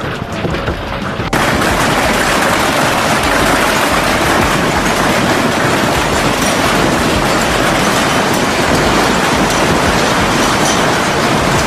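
Heavy hail pelting down: a dense, steady clatter of hailstones that comes in suddenly and loud about a second in, after a quieter stretch of falling hail.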